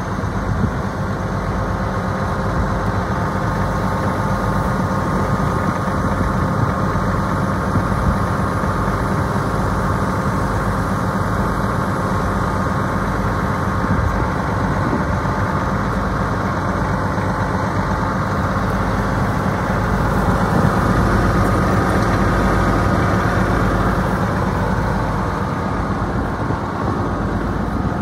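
Case-IH 7120 Magnum tractor's six-cylinder diesel engine idling steadily.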